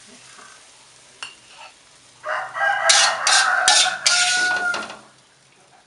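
A rooster crows once, starting about two seconds in and lasting nearly three seconds, ending on a held note. Under it, a metal spatula scrapes and knocks against the wok a few times as food is scooped out.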